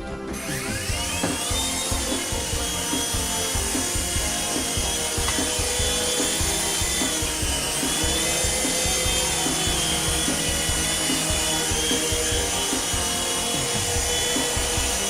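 The small electric motors of a mini coaxial RC helicopter spin up with a rising whine, then run steadily as it flies. The pitch dips briefly about halfway through and comes back up as the throttle changes.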